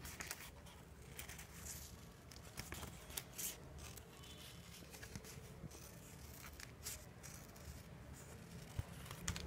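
Scissors snipping through paper in short cuts at irregular intervals, with the paper rustling as it is turned.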